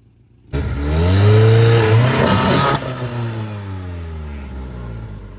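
Off-road 4x4's engine revving under load: it starts abruptly about half a second in, climbs in pitch and is loudest for about two seconds, then eases off with the pitch falling.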